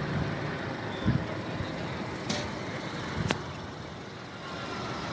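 Steady road and traffic noise, with a dull thump about a second in and two sharp clicks a little after two and three seconds.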